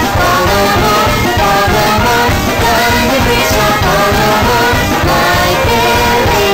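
Background music with a melody and singing.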